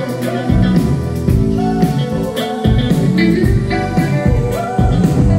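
Live rock band playing a song: a female voice singing the melody over electric guitar, bass and a steady drum beat, heard from out in the audience of a concert hall.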